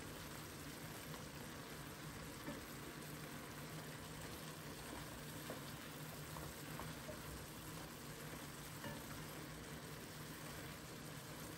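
Spinach, meat and carrots sizzling softly in an enamelled cast-iron pan as a silicone spatula stirs them, a steady faint hiss with a few light ticks.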